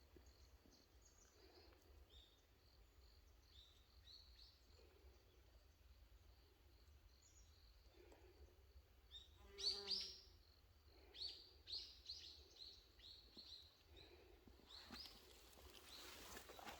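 Faint songbirds chirping in a quiet forest: scattered high chirps, one louder call about ten seconds in, then a run of short chirping notes, and a soft rustling hiss near the end.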